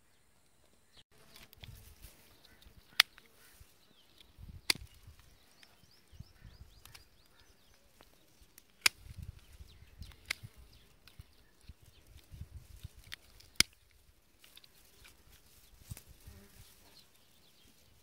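Handling in dry brush: rustling of stems and leaves, low thumps on the microphone, and several sharp clicks or snaps spread through it.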